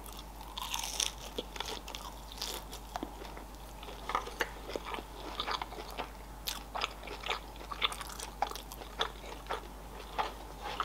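Close-miked mouth sounds of someone chewing a mouthful of sushi roll: a bite at the start, then many short, irregular wet clicks of chewing.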